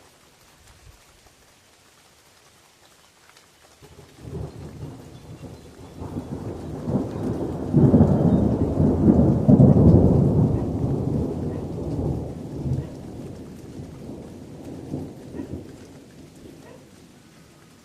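A roll of thunder over steady rain falling on forest leaves: the rumble starts about four seconds in, is loudest in the middle, and dies away over several seconds.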